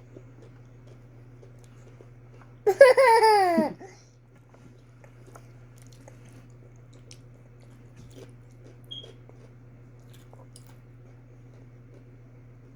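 A young child's high-pitched vocal squeal, about a second long and falling in pitch, about three seconds in; otherwise faint chewing and small mouth and eating clicks over a steady low hum.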